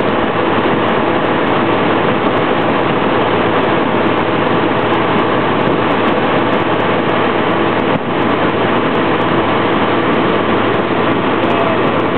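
X-Air microlight's engine and propeller droning steadily in cruising flight, heard from the cockpit, with a brief dip about eight seconds in.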